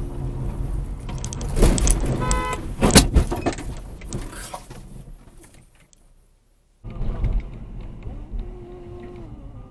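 Dash-cam recording of a car driving, with a cluster of sharp knocks and bangs about two seconds in and a short tone among them. The sound fades out around six seconds, and after a moment's silence a second stretch of car driving noise begins.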